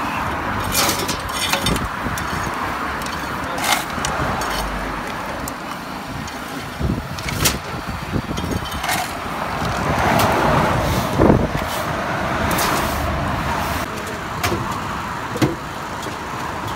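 Steady vehicle and machinery noise from a road repair site, swelling about ten seconds in, broken by scattered sharp clicks and knocks.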